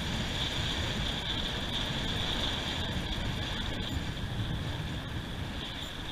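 Steady outdoor beach noise: a low rumble of wind and surf on the microphone, with a thin, steady high-pitched hiss over it.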